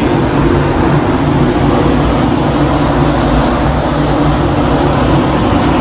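Paint spray booth's ventilation fans running: a steady, loud roar of rushing air. The high hiss drops away about four and a half seconds in.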